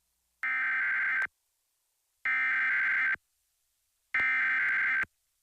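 Emergency Alert System SAME header: three identical bursts of warbling digital data tones, each just under a second long, about a second apart, which open a new test alert.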